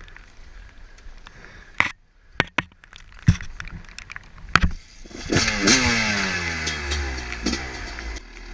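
Husqvarna WR300 two-stroke dirt bike engine being restarted: a few sharp knocks, then about five seconds in it fires and runs, its revs falling away steadily.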